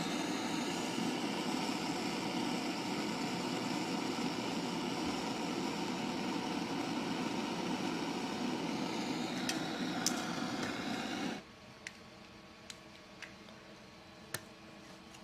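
Gas torch (flame gun head on a gas canister) burning at a small flame with a steady hiss, cut off suddenly about eleven seconds in. A few faint clicks follow.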